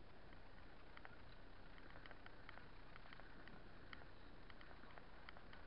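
Faint bicycle riding noise: a steady low hiss with light, irregular ticks, a few each second.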